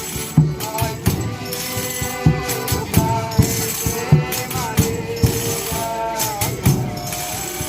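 Folia de Reis folk music: tambourines jingling steadily over a low drum beat about once a second, with a sustained melody line that bends gently in pitch.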